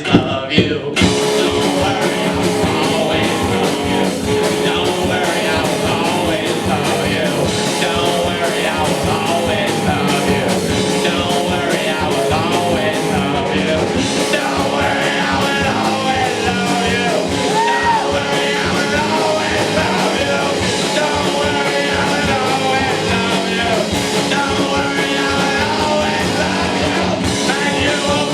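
Live band playing an instrumental passage: electric guitars over a steady drum beat, with a lead line bending up and down in pitch.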